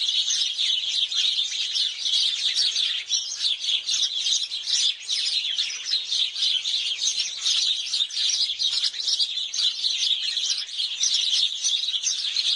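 A flock of house sparrows chirping together, many short overlapping chirps in a continuous chatter.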